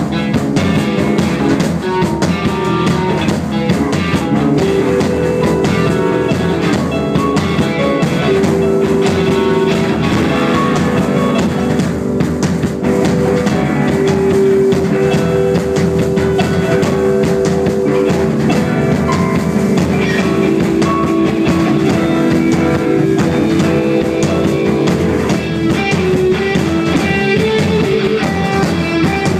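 Instrumental rock music: guitar with drum kit, steady and loud, with long held notes and no singing.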